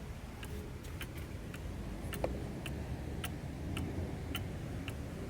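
Large mechanical cuckoo clock ticking steadily, a little under two ticks a second, with one sharper click about two seconds in.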